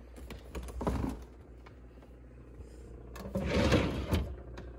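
Plastic refrigerator drawer being handled and slid open: a short rustle about a second in, then a louder, longer sliding scrape over a second near the end, over a low steady hum.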